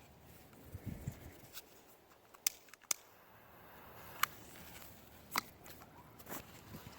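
A handful of sharp clicks spaced roughly a second apart, with a couple of soft low thumps about a second in.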